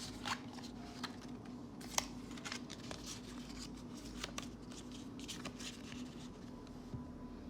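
Magic: The Gathering cards being handled and flipped through: soft slides and rustles of card stock with a few sharper clicks, the clearest about one and two seconds in, over a faint steady hum.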